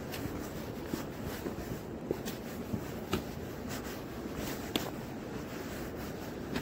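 Footsteps crunching and clicking on a stony mountain trail, irregular, roughly one to two steps a second, over a steady background hiss.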